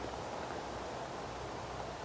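Steady outdoor background hiss, with no distinct event.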